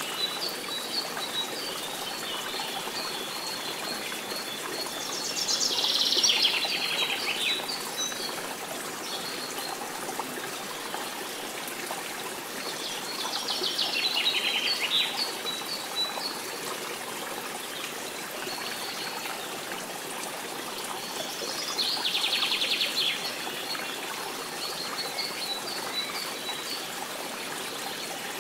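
Nature-sounds background track: small birds chirping over a steady trickle of running water. A louder bird trill comes about every eight seconds.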